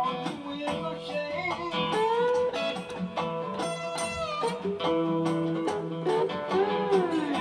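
Blues played on acoustic guitar and slide guitar: plucked notes under slide notes that glide up and down in pitch, with a rising glide about two seconds in, a falling one near the middle and a rise-and-fall near the end.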